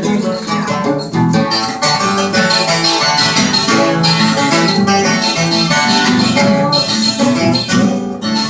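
Instrumental break of a Brazilian country song: viola caipira and guitar playing a quick plucked melody, with no singing.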